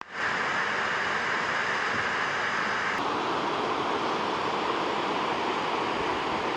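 Steady rushing of river water pouring over a row of low rock ledges in small cascades, with the brighter part of the hiss easing a little about three seconds in.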